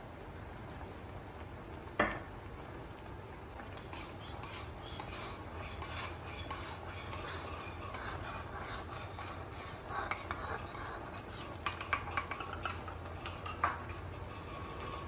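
Wooden spoon stirring and scraping stir-fried vegetables and chicken around an aluminium wok, with several sharper clacks against the pan near the end. A single sharp knock comes about two seconds in.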